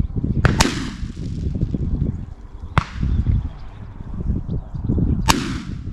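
Four shotgun shots at passing doves: two almost together about half a second in, one near the three-second mark and one about five seconds in, each with a short echo trailing after it.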